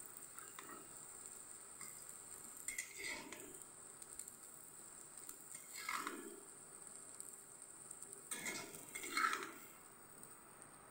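A long steel ladle scraping and clinking against a metal kadhai as cooked vegetables are scooped out into a steel bowl, in three short bouts a few seconds apart, over a faint steady hiss.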